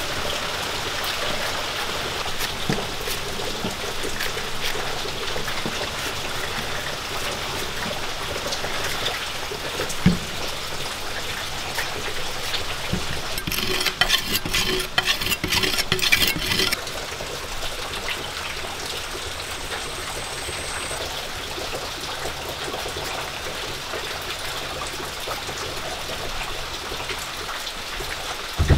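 A steel kitchen knife sharpened on the unglazed rim of a clay pot: a quick run of rasping strokes lasting about three seconds, about halfway through. A steady hiss of water runs behind it, with an odd knock of the knife.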